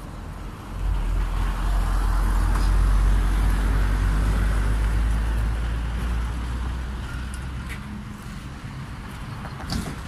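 Tram passing on its rails: a low rumble with a hiss of wheels on track swells about a second in, peaks, and fades away over the following seconds. A sharp click comes near the end.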